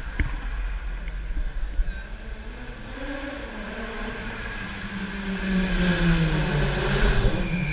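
Race car engines driving past at speed on a street, one engine rising in pitch as it accelerates, loudest about six to seven seconds in.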